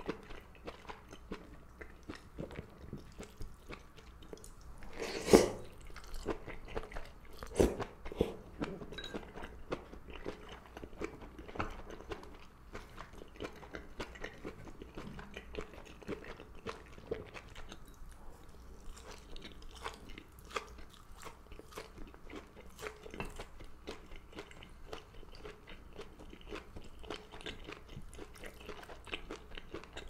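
Close-miked chewing of seaweed from Korean seaweed soup (miyeok-guk) and gondre greens: many small wet mouth sounds, with two louder sharp sounds about five and seven and a half seconds in.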